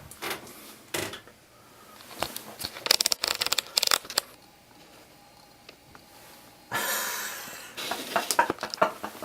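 Scattered clicks, taps and rustling of things being handled, with a quick run of clicks about three seconds in and a hiss lasting about a second near seven seconds.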